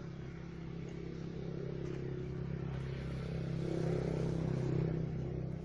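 An engine running steadily with a low, even hum, growing louder toward a peak about four to five seconds in and easing off near the end.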